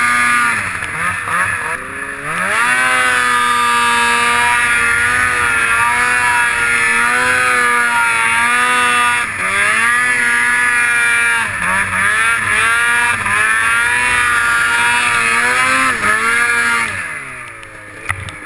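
Snowmobile engine revving high under load in deep powder, its pitch dipping and picking back up several times, then falling away and quietening near the end as the sled slows to a stop.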